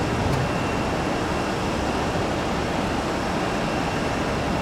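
Steady airport background noise: distant aircraft and ground equipment running as one even rush, with a faint steady high whine over it.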